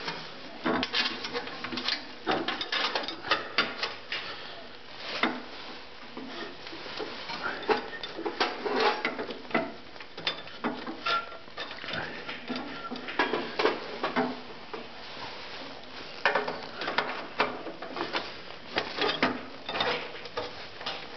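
Irregular metallic clicks and clinks of small parts handled by hand: a roller chain, sprocket and bolts being fitted to a snowthrower's steel side plate.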